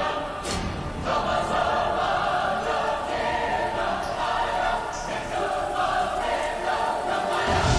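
Background music of a choir singing long, held chords.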